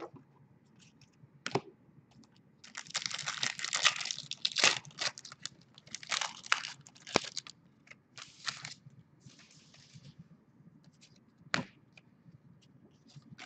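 Foil wrapper of a trading-card pack being torn open and crinkled in several bursts, with a few sharp clicks as the cards are handled, the last click near the end being the loudest.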